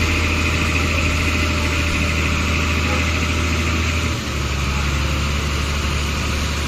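Engine idling steadily, with a low hum that shifts in pitch about four seconds in.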